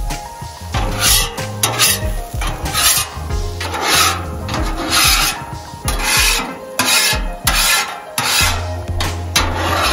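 Metal griddle scraper dragged across the wet steel top of a Blackstone griddle in repeated strokes, about one a second. Water has been put on the hot surface to loosen the leftover gunk, and the strokes scrape it off.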